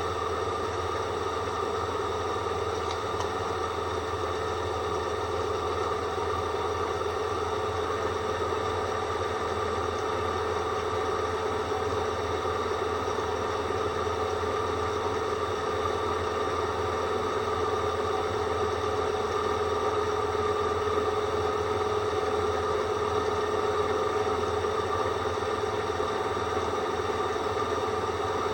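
Drill running continuously with a steady whistling tone over a low motor hum, the whistle of a dull drill bit.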